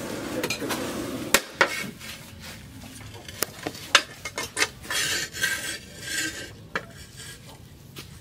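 Irregular clinks and scrapes of steel pieces and tools being handled, with one sharp clink about 1.4 seconds in and brief metallic ringing near the middle.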